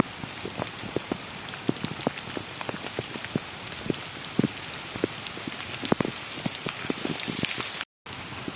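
Steady rain falling, with many heavy drops striking close by as sharp, irregular taps.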